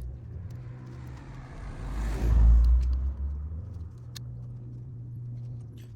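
A car driving past, growing louder to a peak about two and a half seconds in and then fading away, over a steady low hum.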